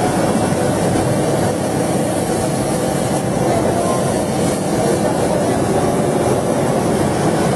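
Steady mechanical running noise of a leather laser cutting machine and its conveyor, a constant loud rushing hum with a faint steady tone above it.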